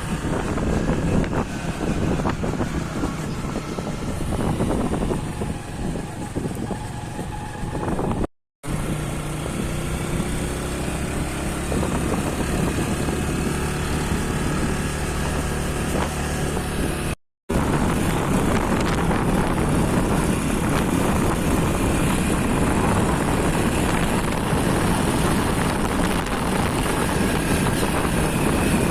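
Engine and road noise of a vehicle being driven, running steadily. It comes in three stretches with two abrupt cuts, about 8 and 17 seconds in.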